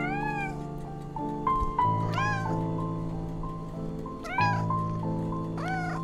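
Kitten meowing four times, each meow a short call that rises then falls in pitch, over background music with long held notes.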